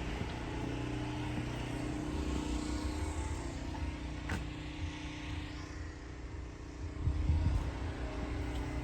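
Car moving on a road: steady low engine and road rumble, with a rising and fading hiss a few seconds in.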